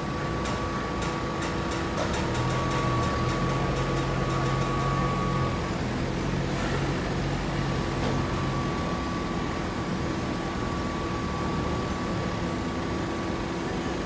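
Steady drone of hydraulic baling machinery running, with a high whine held throughout. There is a quick run of light ticks in the first few seconds and a deeper hum from about two to six seconds in.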